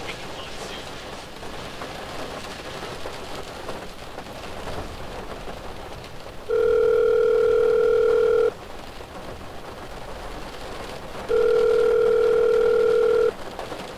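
Heavy rain on a car windshield, a steady hiss. A telephone ringback tone sounds over it twice, each about two seconds long and louder than the rain: the line ringing on an outgoing call.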